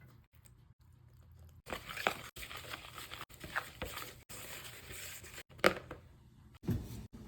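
Kitchen handling noises while baking: irregular rustles, scrapes and light knocks, broken by brief dead silences, with one sharp knock about two-thirds of the way through.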